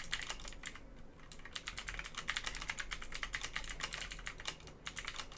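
Fast typing on a Havit mechanical keyboard: a quick, steady run of key clicks, broken by brief pauses about a second in and again near the end.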